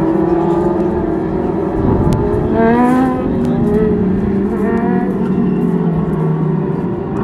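Dwarf race cars' motorcycle engines running in a pack around the oval, a steady drone in which engines rise in pitch as they accelerate, most clearly about two and a half seconds in and again near five seconds.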